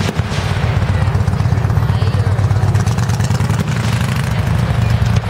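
Aerial fireworks shells bursting in quick succession, their booms running together into a continuous low rumble, with a sharper bang right at the start and another about three and a half seconds in.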